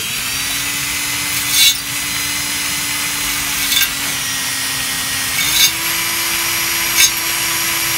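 Electric drill spinning a 3/32-inch bit through the clogged port holes of a brass gas-grill burner, clearing out the built-up debris and rust. The motor runs at a steady whine that steps up a little in pitch past halfway, with four short scrapes as the bit catches in the holes.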